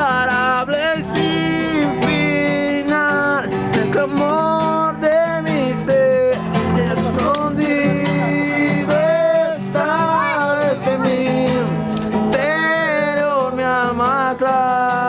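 Voices singing a Spanish-language worship song to strummed acoustic guitar.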